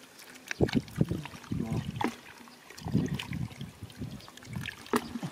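Hands sloshing and squelching in shallow muddy water and wet mud, in irregular splashy bursts with a few sharp clicks.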